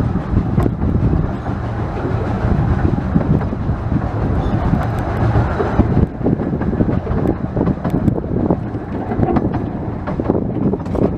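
15-inch-gauge steam train of the Ravenglass & Eskdale Railway running past, with wheels clattering over the rail joints. Wind is buffeting the microphone.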